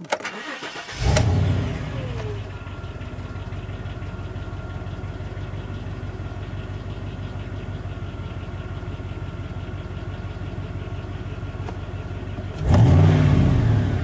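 Chevrolet Silverado 2500's 8.1-litre Vortec V8 starting about a second in, flaring and then settling into a steady idle. Near the end it is revved once and drops back. This is a test run after the number 6 ignition coil was replaced to cure a low-RPM misfire.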